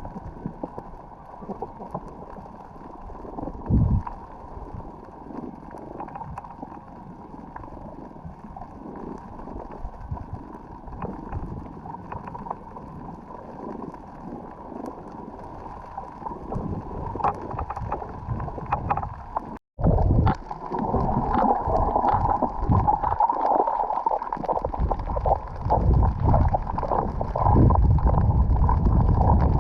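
Water gurgling and sloshing as picked up by a snorkeller's camera in the water, dull and muffled at first. After a brief dropout about twenty seconds in it turns louder and brighter, with many short splashy spikes.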